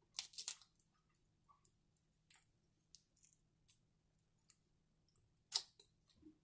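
Snow crab shell being picked apart by hand: scattered small sharp clicks and crackles of shell, with a louder cluster at the start and one strong crack about five and a half seconds in.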